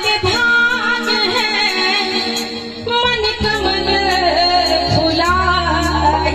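A woman sings a folk-style devotional song through a PA microphone, backed by live hand drums (dholak and a large barrel drum) beating a steady rhythm. About three seconds in, a low sustained tone comes in under the voice.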